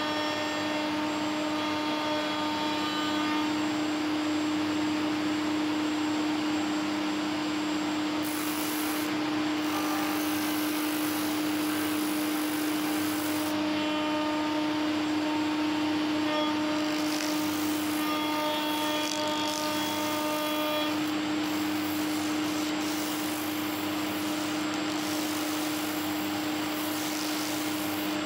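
Homemade plywood spindle sander running with a steady motor hum. Stretches of hissing scraping come and go as the hands press against the spinning sanding drum.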